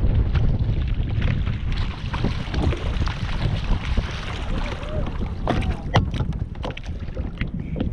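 Wind buffeting the microphone on a kayak out on open water, with scattered small knocks against the kayak, more of them in the second half.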